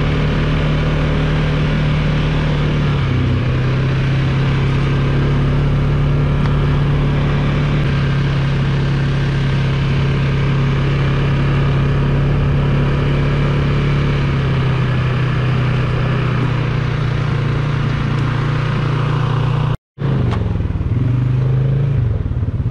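Polaris 570's single-cylinder engine running at a steady trail pace, its pitch dropping a little about three seconds in, under a constant hiss. The sound cuts out for a moment near the end, then the engine picks up again.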